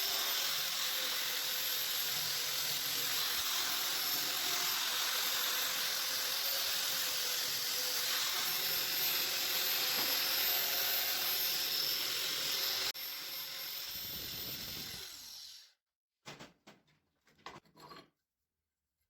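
A homemade sanding machine running and grinding against wood, a steady whine over a hiss. About thirteen seconds in the sound drops suddenly, then the motor winds down and stops, followed by a few short clicks.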